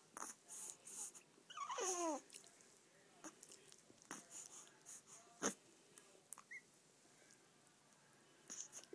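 Newborn baby sucking and smacking on her fist: soft, wet mouth noises with a sharp click about five seconds in, and a brief squeaky whimper falling in pitch about two seconds in.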